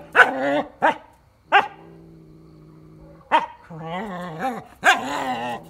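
Aidi (Atlas Shepherd) puppy barking at a cat, five sharp barks. Between the barks come long low growls and wavering, drawn-out yowls, the sounds of a dog–cat standoff.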